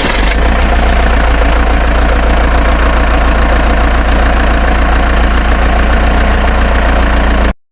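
A motor vehicle engine idling steadily with a strong low hum, cutting off abruptly near the end.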